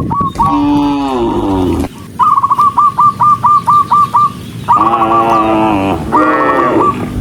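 Cattle mooing: three drawn-out calls that slide down in pitch. Between the first two calls a bird gives a fast run of short, repeated chirping notes.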